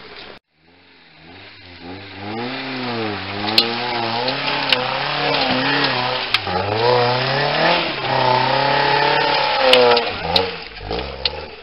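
Suzuki Jimny's engine revving hard in mud, its revs rising and falling over and over as the wheels scrabble for grip. A few sharp clicks sound through it.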